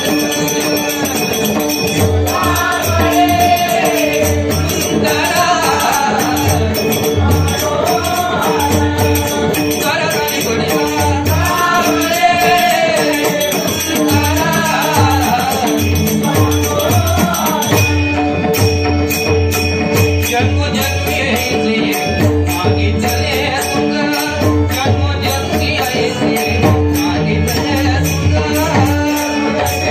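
Marathi devotional bhajan music: a sung melody over a steady harmonium drone, with a hand drum and small hand cymbals keeping a fast, even beat. The voice is clearest over the first half, and the cymbal pattern changes at about eighteen seconds.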